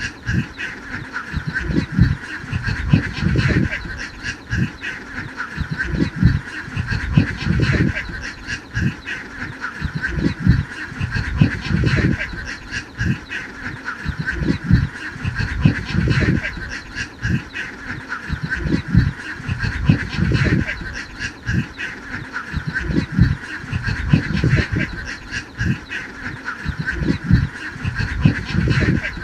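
A large flock of domestic ducks quacking together in a dense, unbroken chatter of overlapping calls. Irregular low rumbling thumps come every second or two.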